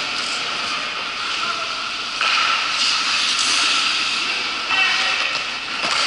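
Ice-hockey skate blades scraping on the ice close to the goal, a steady hiss that gets suddenly louder about two seconds in.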